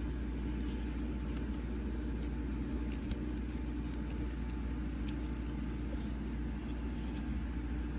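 Steady low mechanical hum, even in level throughout, with a few faint light clicks.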